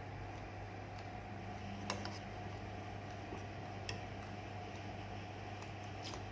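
Scattered sharp clicks and ticks of eating, a few seconds apart, over a steady low hum.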